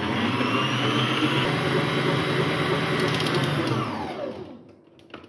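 Electric stand mixer running, its wire balloon whisk whipping eggs and sugar for sponge cake batter in a steel bowl. It runs steadily, then is switched off about four seconds in, its pitch falling as the motor winds down.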